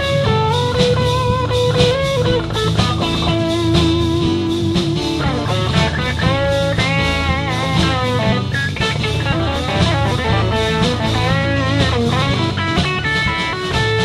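Live rock band playing an instrumental break: a lead electric guitar plays held, bent and wavering notes over bass and drums.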